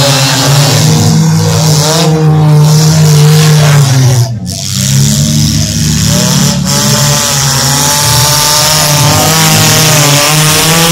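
Several bump-and-run race cars' engines revving hard together, their pitch rising and falling as they accelerate and lift, with a short dip in loudness about four seconds in.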